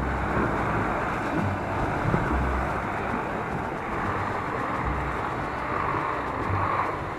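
Vehicle engine running low and uneven while fording a river, with the constant rush of water around it.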